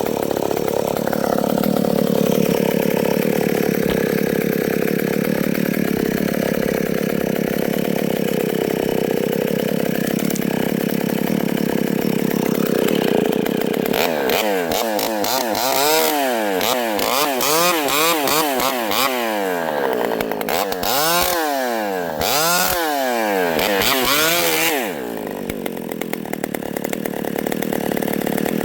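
Vintage Pioneer two-stroke chainsaw running at high revs and cutting wood, then about halfway through revving up and down over and over for some ten seconds, before dropping back to idle near the end.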